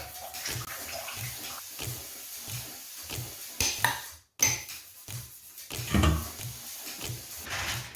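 Dishes and cutlery clattering and clinking, as in washing up or clearing crockery, in irregular knocks with a brief break a little past halfway.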